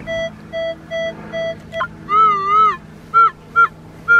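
Metal detector's audio response as the coil passes over a buried target: a run of short, even low beeps, then a wavering higher tone about two seconds in, followed by a few short high blips.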